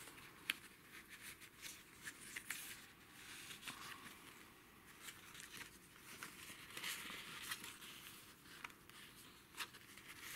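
Faint rustling of paper pages and ephemera being turned and handled in a handmade junk journal, with scattered light clicks and taps.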